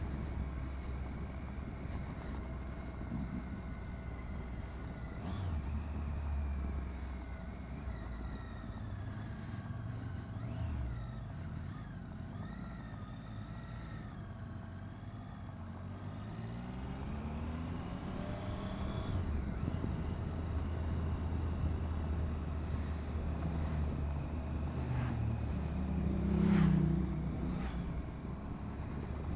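Motorcycle engine running as the bike is ridden, heard from the rider's helmet over wind noise. Its pitch falls and rises with the throttle, climbs steadily about two-thirds of the way through, and swells into a louder rev near the end.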